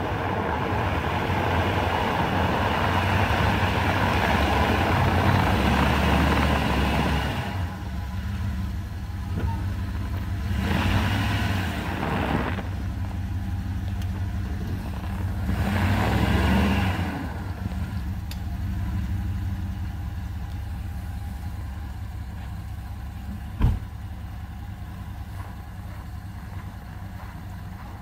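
Lifted Dodge Ram pickup's engine working under load, then surging twice as the truck pushes its locked-up front wheel over snow; the front right wheel bearing has failed completely. The engine then settles to a quieter idle, with a single sharp thump about three-quarters of the way in.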